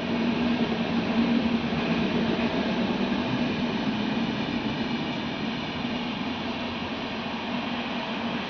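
A machine running steadily: an even mechanical rush with a constant low hum, no starts, stops or knocks.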